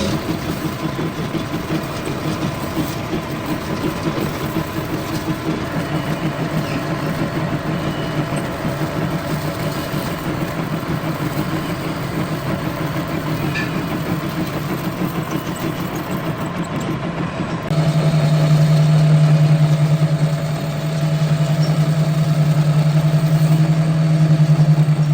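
Lathe running steadily with a low, even hum while machining a metal pulley. About eighteen seconds in, it gets louder and the low hum becomes stronger.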